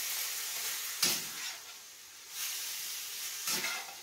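Chicken pieces sizzling and steaming in a hot frying pan with a little water and no fat, as a spatula stirs them and scrapes the pan: once about a second in and again near the end.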